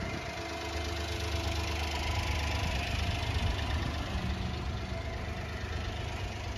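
Honda Acty truck's small three-cylinder engine idling steadily.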